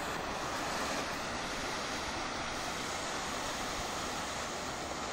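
Handheld Maxim Fireworks red smoking fountain burning, with a steady hiss as it pours out smoke.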